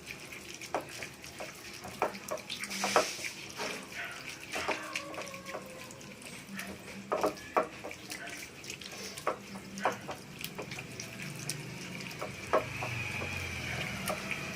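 Hands squeezing and mixing soaked semolina batter with chopped onion and coconut in a bowl: wet squelching with irregular small clicks.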